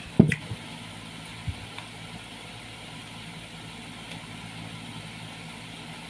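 A loud, sharp knock about a quarter second in, followed by two fainter knocks, over a steady low hum.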